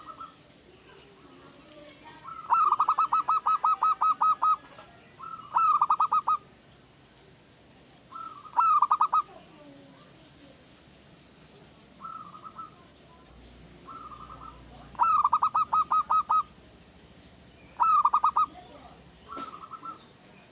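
Male zebra dove (perkutut) singing: five phrases of rapid staccato cooing notes, the first a run of about ten, with short softer calls between. A newly kept wild bird still learning its song.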